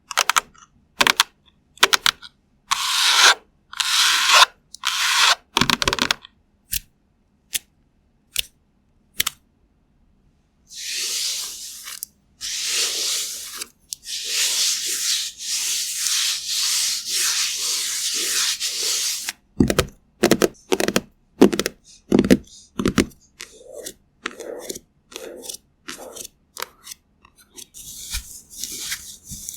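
Makeup being applied and handled close to the microphone. Sharp clicks and short swishes come first, then several seconds of steady rubbing strokes, then a run of quick taps and knocks, then lighter brushing.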